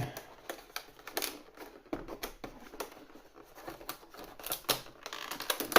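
Cardboard advent calendar door being opened and its contents handled: an irregular run of clicks, taps and crinkles from cardboard and packaging.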